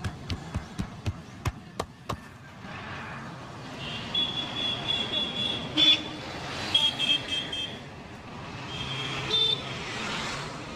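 Quick, evenly spaced hand slaps of a street barber's head massage, about four a second, for the first two seconds. Then street traffic with several car and motorbike horn toots.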